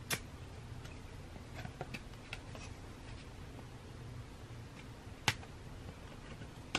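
Quiet room with a low steady hum, broken by a few sharp clicks and lighter ticks from photo cards and packaging being handled. The sharpest click comes about five seconds in.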